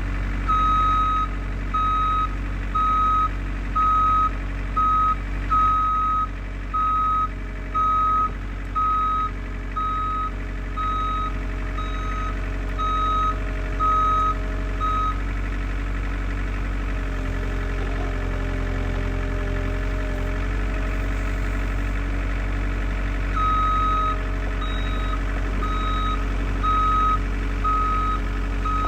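Vehicle backup alarm giving regular, evenly spaced beeps over a diesel engine running. The beeps stop for several seconds around the middle while the engine's pitch shifts, then start again.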